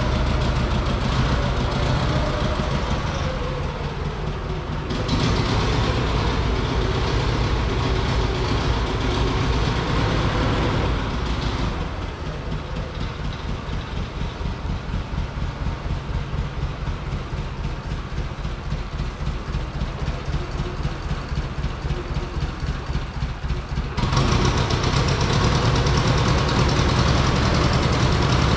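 A diesel farm machine engine running steadily with a low, pulsing beat, heard in several stretches that change suddenly in tone and level.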